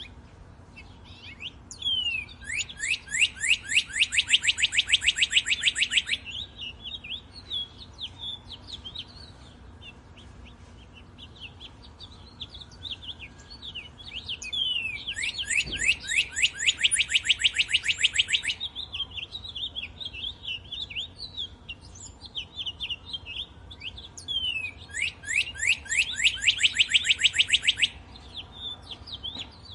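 Songbird singing a loud, fast trill of many quick repeated notes, about four seconds long, three times, with softer chirps from other birds in between.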